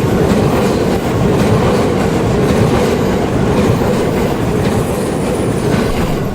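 JR West 287 series electric limited express train passing close by at speed: a steady loud rumble of wheels on rail with the clickety-clack of the bogies over the rail joints.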